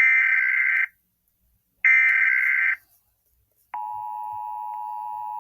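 Emergency Alert System SAME header: the last two of three loud digital data bursts, each about a second long and about a second apart. A steady single-pitched NOAA Weather Radio alarm tone follows, quieter, starting a little over a second before the end. Together they signal that a weather warning is about to be broadcast.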